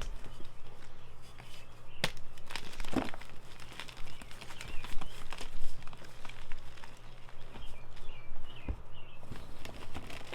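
Blocks of Ader gym chalk being crushed, an irregular stream of crunches and crumbling crackles, with a sharp crack about two seconds in.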